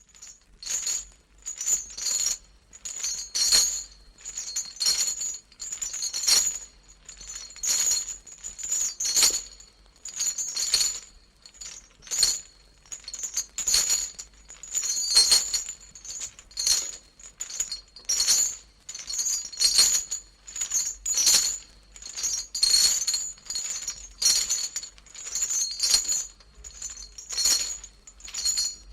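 A long run of sharp clinks, about one or two a second, each ringing briefly with a bright jingle, as of metal or glass striking.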